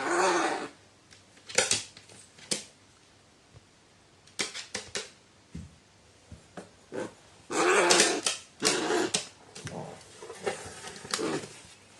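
A pet animal giving short, rough vocal sounds in about seven irregular bursts, the longest near the start and about two-thirds of the way through.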